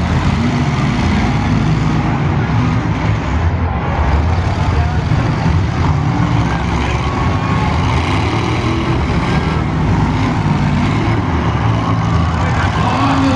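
Demolition derby cars' engines running and revving together as the cars push and ram each other, a steady loud mechanical din.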